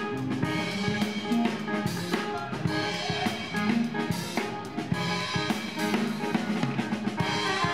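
Live jazz-funk band playing an instrumental funk groove, heard close to the drum kit: snare and bass drum strokes up front, with the band's pitched instruments underneath.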